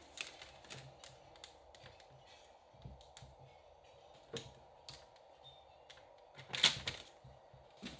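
Scattered light clicks and taps from card stock and a paper trimmer being handled on a cutting mat, with a louder clack about six and a half seconds in.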